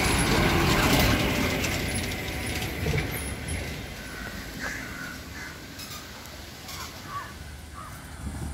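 Outdoor street ambience: a passing vehicle's noise swells and fades over the first few seconds, then birds give a few short calls.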